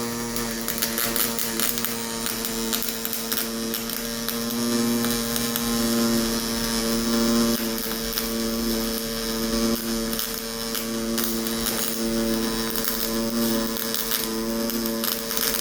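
HTP Pro Pulse MIG welder laying a pulse MIG bead: a steady buzzing hum at one pitch from the pulsing arc, with crackle and spatter over it.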